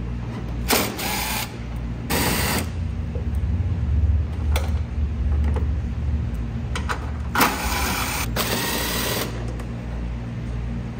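Cordless impact driver zipping out the radiator fan shroud bolts in short bursts: two quick runs in the first few seconds, then a longer run near the end.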